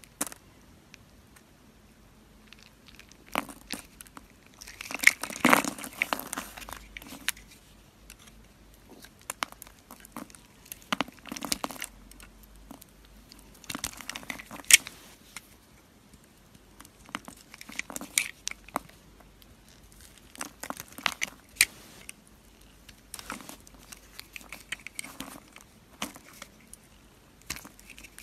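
A knife blade cutting through a bar of soap scored into cubes, the cubes cracking and crumbling off in crisp crunching bursts every couple of seconds with short pauses between; the loudest burst comes about five seconds in.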